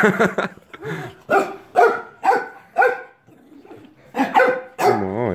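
Pet dogs barking in a string of short barks, about two a second, with a pause midway and a longer wavering cry near the end; the barking comes from a squabble between the house dogs.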